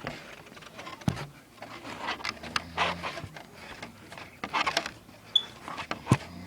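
A man snoring: several noisy, breathy snores over a low hum, with two sharp clicks, about a second in and near the end.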